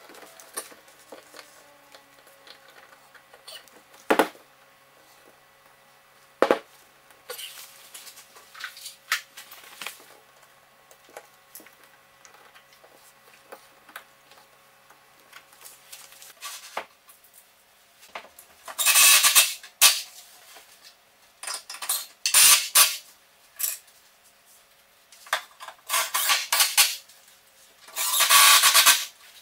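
Hands-on work noise: a few sharp clicks and knocks at first, then from about two-thirds of the way through a series of loud, scratchy scraping and rustling bursts, each a second or so long.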